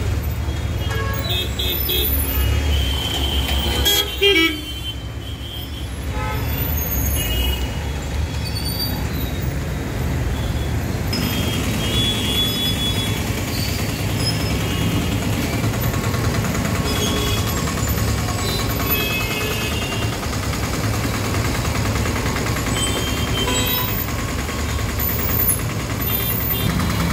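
Jammed road traffic: a steady rumble of idling and creeping engines, with car and motorbike horns honking now and then, loudest in a short burst about four seconds in.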